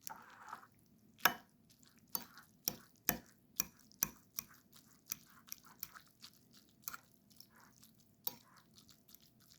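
Utensil stirring instant ramen noodles in a bowl, scraping and tapping against the bowl in irregular sharp clicks, about two a second, thinning out near the end.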